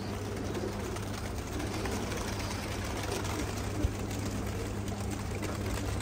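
Domestic pigeons cooing over a steady low hum, with a single sharp click about four seconds in.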